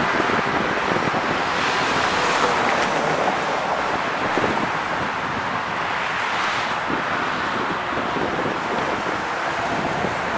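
Steady rush of passing road traffic mixed with wind buffeting the microphone.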